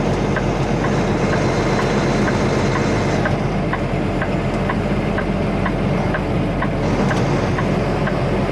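Steady engine and road noise heard from inside a semi-truck cab while driving, with a light tick repeating about twice a second.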